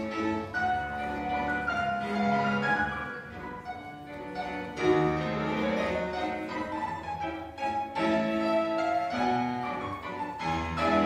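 Classical ballet music with strings and piano playing a flowing melody, the accompaniment to a ballet solo.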